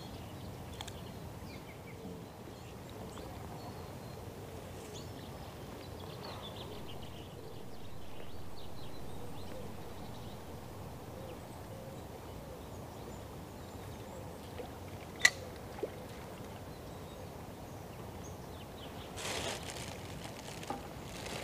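Steady rush of a fast-flowing river running over shallows, with faint bird chirps above it and a single sharp click about fifteen seconds in.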